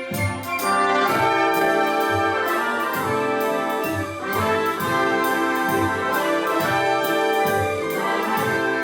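Orchestra playing a brisk number, with brass leading over a steady drum beat.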